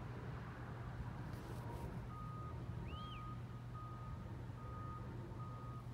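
An electronic beeper sounding short, evenly spaced beeps at one pitch, a little more than one a second, starting about two seconds in, over a steady low hum. A short high chirp comes about three seconds in.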